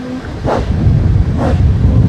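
Narrow-gauge steam locomotive's exhaust beats: two chuffs about a second apart over the steady low rumble of the train running.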